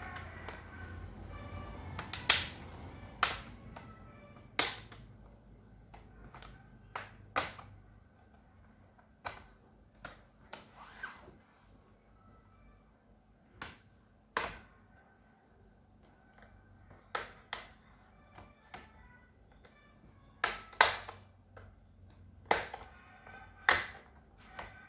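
Plastic snap clips of an MSI GF65 laptop's bottom cover popping loose one after another as the cover is pried off: a long irregular string of sharp clicks, some much louder than others.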